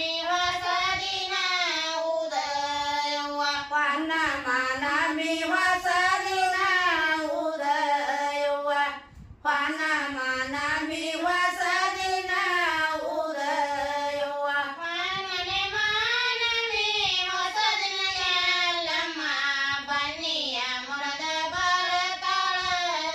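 Women singing a North Karnataka Kannada devotional folk song in high voices, a continuous melodic line with a short pause for breath about nine seconds in.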